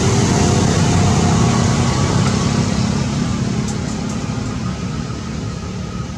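Steady low rumble of a motor vehicle, growing gradually fainter.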